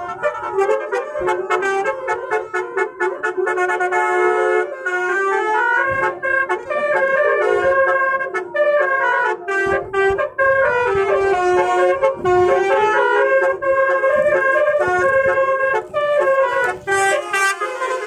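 Basuri telolet horn, a bank of air-horn trumpets on a vehicle, playing a fast melody of short stepping notes, loud and continuous with brief breaks.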